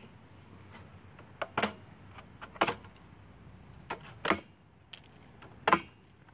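White plastic packing straps around a new trailer tire being cut loose: four sharp snaps, each a strap parting.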